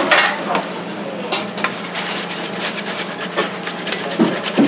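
Food sizzling in a frying pan while a utensil stirs it, with repeated short clinks and scrapes against the metal, over a low steady hum.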